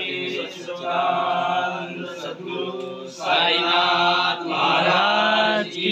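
Voices chanting a devotional chant together in long, held phrases, a few seconds each.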